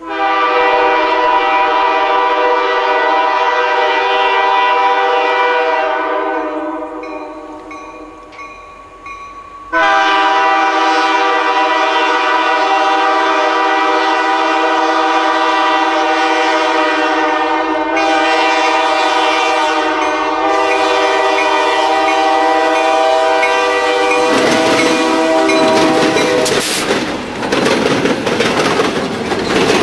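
Diesel locomotive's multi-chime air horn sounding two long blasts as the train approaches: the first fades out about six seconds in, and the second starts about ten seconds in and is held until the locomotives reach the camera. Then the locomotives pass close by, their engines running and wheels clattering over the railroad diamond.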